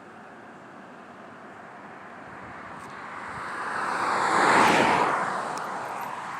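A car passing on the road: tyre and engine noise swells, is loudest a little past the middle, then fades away.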